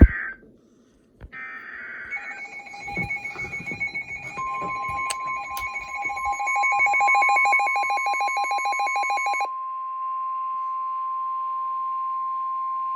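Emergency Alert System alert on NOAA Weather Radio: a short buzzy SAME data burst, then a rapid electronic beeping alarm for about seven seconds, overlapped from about four seconds in by the steady single-pitch 1050 Hz weather radio warning tone, which holds on after the beeping stops. The sequence signals that a warning message is about to be read.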